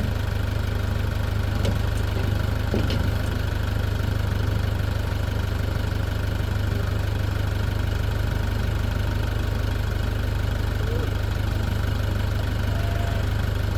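Tractor engine idling steadily, with a couple of faint knocks about two and three seconds in.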